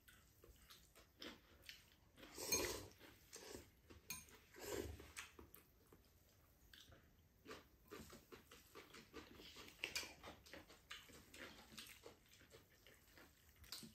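Faint eating sounds: chewing noodles, with scattered light clicks of chopsticks and a fork against ceramic bowls and a couple of louder short mouth noises a few seconds in.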